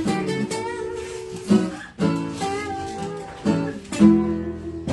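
Two guitars playing a blues: strummed chords struck in a repeating pattern, with a lead guitar line over them.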